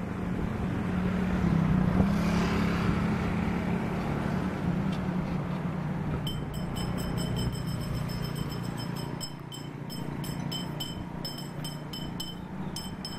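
Bombardier Global 7500 business jet's two GE Passport turbofans running at taxi power: a steady rumble and whine that swells a little about two seconds in, then eases.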